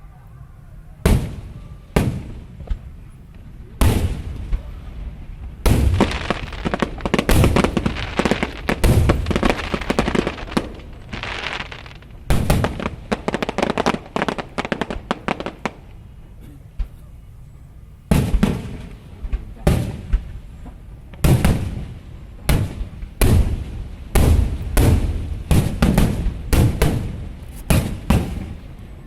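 Aerial fireworks shells bursting in rapid volleys, sharp bangs with crackling between them. The bangs come thick for several seconds, pause briefly about two-thirds of the way through, then start again in another quick run.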